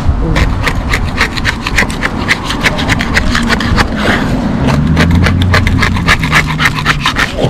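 Hand scraping of crazed old anti-fouling paint on a fibreglass hull, in quick rasping strokes about four or five a second. A low hum runs underneath for a few seconds in the middle.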